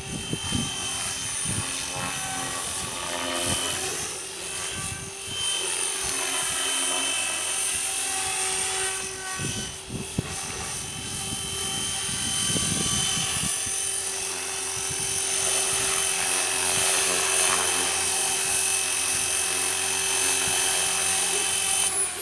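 Radio-controlled model helicopter flying, its motor and rotor whine rising and falling in pitch as it manoeuvres. It grows louder over the second half as it comes in close.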